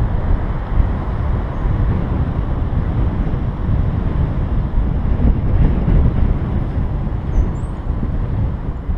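Wind buffeting the microphone of a camera on a moving vehicle, heard as a heavy, steady low rumble mixed with road noise, with no clear engine note.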